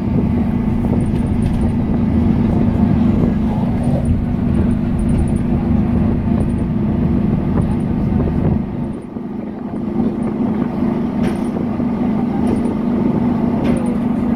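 Bus driving at speed, heard from inside the passenger cabin: a steady drone of engine and tyre noise with a low hum, easing briefly about nine seconds in.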